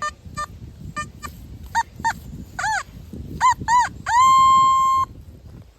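Nokta Simplex Plus metal detector sounding off over a buried target: a run of short beeps, then several beeps that rise and fall in pitch, then one steady tone held for about a second near the end. The target reads 92–93 on the detector, a high-conductivity signal.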